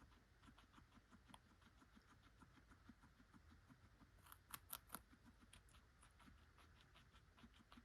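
Guinea pig chewing carrot: a quiet, rapid, steady crunching at about five or six chews a second, with a few louder, crisper crunches about four and a half seconds in.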